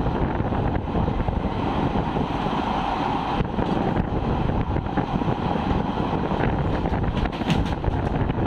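Two passenger trains passing each other at speed, heard at an open coach window: a steady rush of wind on the microphone over the rumble of coach wheels on the rails, with a few sharp clicks in the second half.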